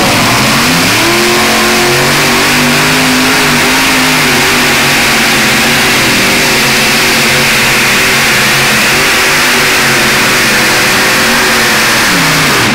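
Modified multi-engine pulling tractor with supercharged engines run flat out under load as it drags the weight sled: the engine note climbs about half a second in, holds high and steady, then falls away near the end as the throttle comes off. Very loud.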